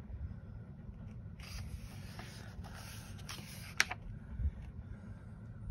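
A paper page of a softcover coloring book being turned by hand: a rustling swish lasting a couple of seconds, ending in a sharp snap of the paper.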